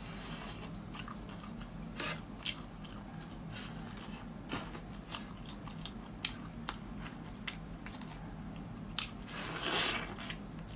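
Shells of boiled crayfish cracking and crackling as they are peeled by hand, mixed with chewing; irregular sharp cracks throughout, with a short denser crunch near the end.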